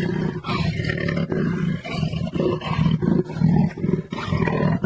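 Jaguar roaring: a run of deep grunts, repeated two or three times a second.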